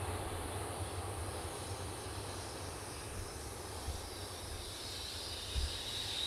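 Boeing 737-900's CFM56 turbofans running at low thrust as the jet taxis and turns onto the runway: a steady low rumble with a hiss over it. Insects chirp in a thin, steady high tone that comes in about four seconds in.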